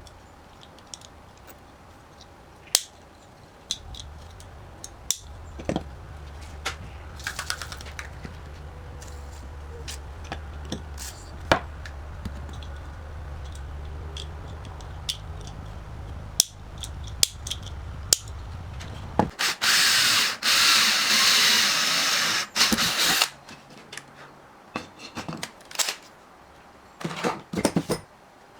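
A small power tool is at work. A low steady motor hum runs for about fifteen seconds, with scattered clicks and taps of handling. Then comes about three and a half seconds of loud, harsh high-pitched whirring, followed by irregular clicks and knocks.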